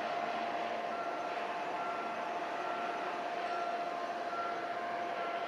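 Shipyard machinery din with a steady hum, over which an electronic warning beeper sounds short beeps that alternate between a higher and a lower pitch, about two a second.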